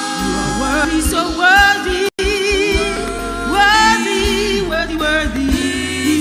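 Gospel worship singing, with long held notes sung with vibrato over backing music that has a low beat. The sound cuts out for a split second about two seconds in.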